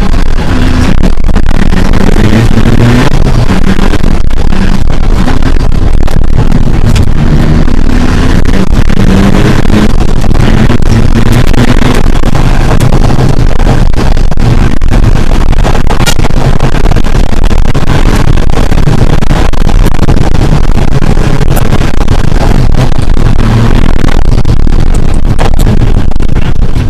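Rally car at stage pace, heard from inside the cabin: the engine's revs keep rising and falling, under constant loud road and tyre noise.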